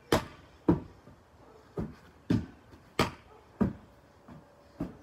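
Large translucent inflatable ball being kicked and rebounding off a house wall and the ground: about seven sharp thumps at uneven intervals.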